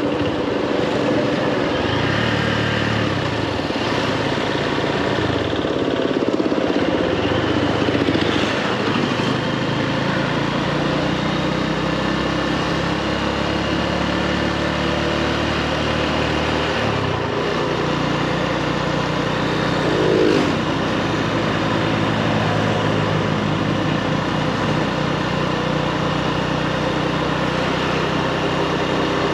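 Motorbike engine running while being ridden, its pitch stepping up and down several times as the throttle and speed change. There is a brief louder burst about twenty seconds in.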